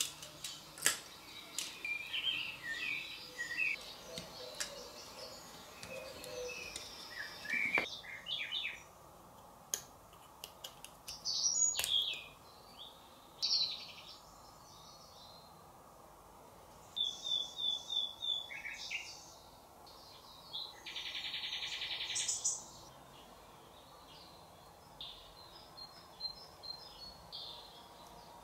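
Small birds chirping and singing in the background: scattered short calls, a quick series of falling notes and a brief dense trill. Occasional light clicks from small plastic and metal parts being handled, mostly in the first third.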